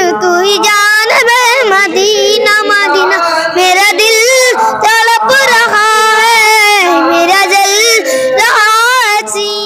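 A boy singing a naat, a devotional song in praise of the Prophet, solo into a microphone. He holds long, wavering notes with a strong vibrato, and the last phrase ends near the end.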